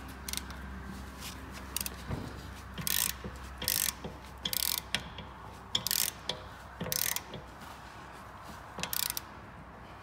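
Ratchet wrench clicking in short bursts on its back-strokes, about seven times, as a stiff, hard-to-turn suspension bolt is worked loose.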